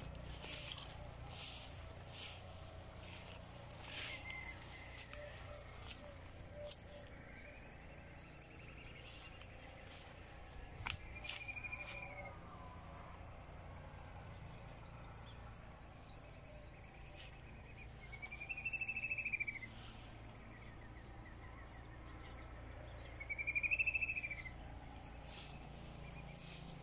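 Insects chirring steadily in a high-pitched, unbroken drone, with a few louder calls that swell and fade over about a second and a half, the strongest about two-thirds of the way through and near the end. Scattered light clicks in the first half.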